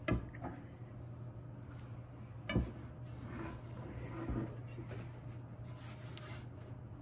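A metal solar inverter case being handled and turned over on a wooden desk: a knock just after the start and another about two and a half seconds in, with light rubbing and clatter between.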